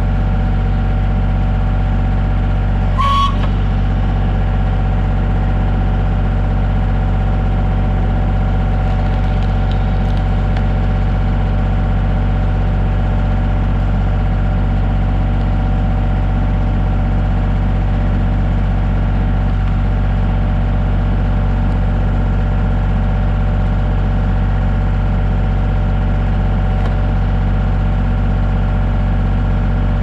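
Kioti 3510 compact tractor's diesel engine running steadily, driving the hydraulic pump of a three-point-hitch log splitter. There is one brief creak about three seconds in.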